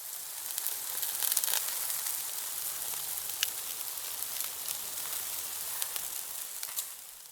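Bacon sizzling on a hot flat-top griddle: a steady frying hiss with scattered sharp pops and crackles. It fades in at the start and fades out near the end.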